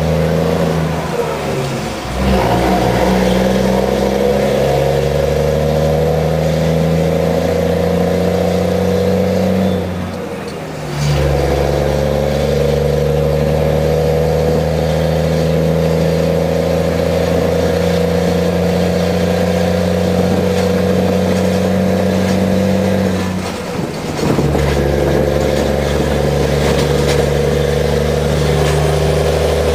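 DAF XF95 430 truck's diesel engine heard from inside the cab, pulling steadily with its note slowly climbing. The note drops away briefly about 2 seconds in, again around 10 seconds and again around 24 seconds, as the driver changes up through the gears, then picks up again.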